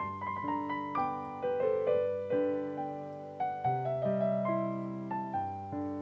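Background piano music: single notes struck and fading in a slow melody over low bass notes.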